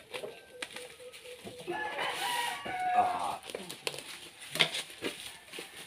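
A rooster crows once, a pitched call of about a second and a half starting near two seconds in. It is set over scattered crackles and rustles of a plastic-wrapped parcel being handled and torn open.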